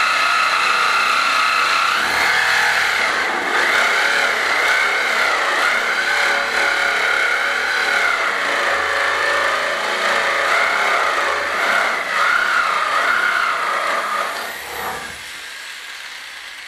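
Jigsaw cutting a curve through a thick plank of reclaimed timber, its motor whine wavering in pitch as the blade is steered along the line. The saw stops about fourteen seconds in.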